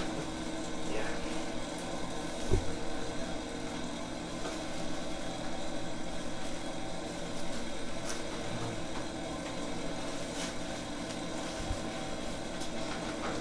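Steady mechanical hum with room noise, and two soft low thumps, one a few seconds in and one near the end.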